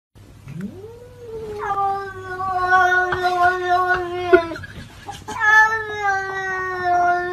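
A cat's long, drawn-out yowl that slides up in pitch, then holds steady for about three seconds before breaking off; a second long yowl at the same steady pitch starts about a second later.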